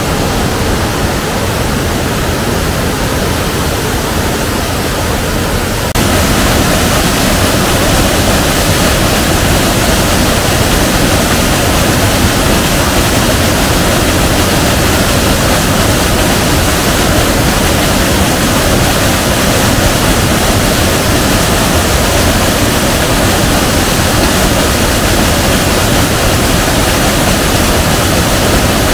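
Swollen river rushing in flood after heavy rain, a loud, steady roar of water that jumps louder about six seconds in.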